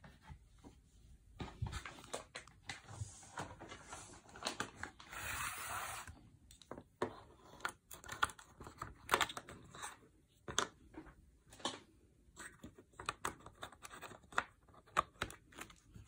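Handling noises from a Surface Book laptop: scattered clicks and taps, with a stretch of rustling about five seconds in.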